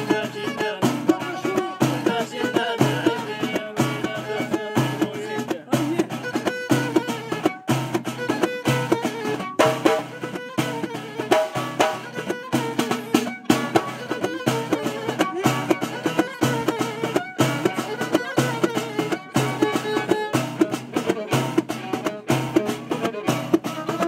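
Bowed violin playing a melody over steady hand-struck frame-drum beats, with other hand percussion keeping time.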